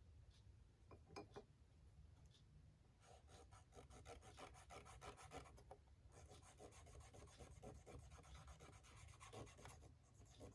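Faint scratching and rubbing on paper as fountain pen ink is swatched onto a card. A few light taps come in the first two seconds, then steady fine scratching from about three seconds in.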